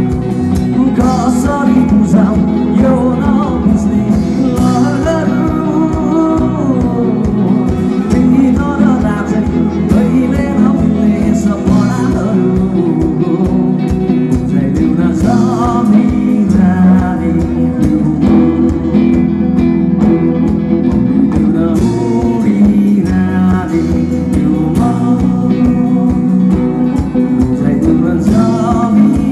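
A live band playing: a male vocalist sings over strummed acoustic guitar, with keyboard and drums.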